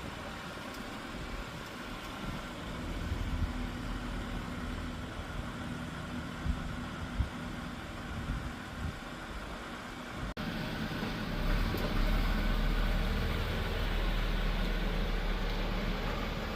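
A BMW E90 325i's straight-six engine running steadily with a low rumble. About ten seconds in the sound cuts abruptly and the rumble comes back deeper and louder.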